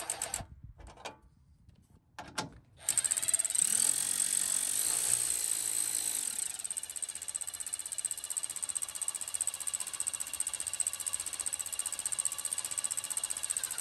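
DeWalt cordless electric ratchet running, driving a bolt on the exhaust heat shield. A short run stops about half a second in, and after a brief pause the ratchet runs steadily from about three seconds in until near the end.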